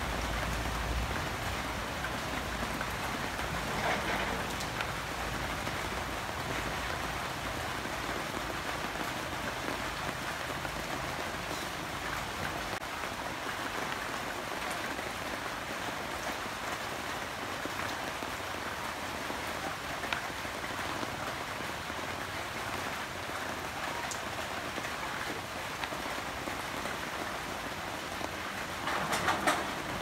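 Steady rain falling, an even, continuous hiss. A few sharp knocks come in near the end.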